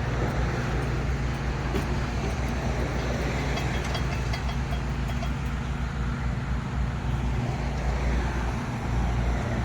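Monte Carlo SS's V8 engine idling steadily, a low, even rumble.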